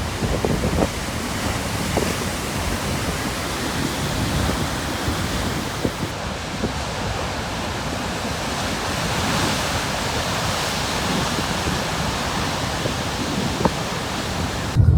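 Heavy Atlantic surf breaking and churning on a rocky shore at high tide, a continuous rush of water with wind buffeting the microphone. The sound cuts off suddenly near the end.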